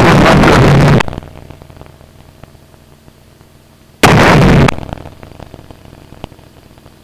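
Loud, clipped bursts of radio noise over the aircraft headset audio: one cuts off about a second in, and a second short burst comes about four seconds in. Between them a faint steady drone of the aircraft engine.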